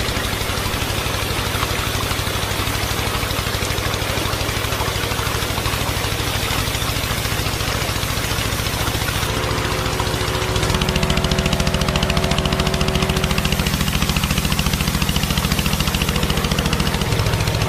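A small engine running steadily with a rapid, even beat. It gets louder and its tone changes about ten and a half seconds in, and the tone shifts again near the end.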